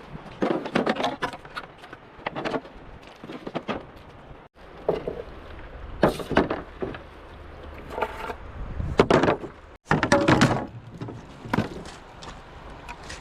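Bamboo being worked by hand: irregular clusters of knocks and clattering strikes, several in quick succession, the loudest about nine and ten seconds in.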